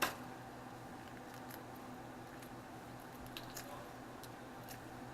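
Quiet kitchen with a low steady hum and a few faint, short clicks and ticks from handling cooked crab and shrimp, mostly in the second half.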